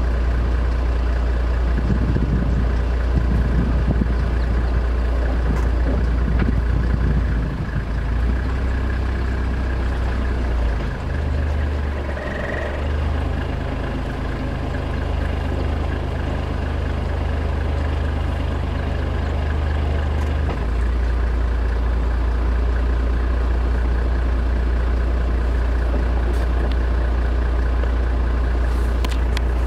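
Vehicle engine running at idle, a steady low drone. From about eleven seconds in its note changes as the engine speed shifts, then it settles back to the same idle about twenty seconds in.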